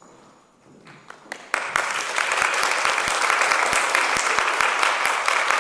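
Audience applause: a few scattered first claps, then about a second and a half in the whole audience breaks into steady clapping.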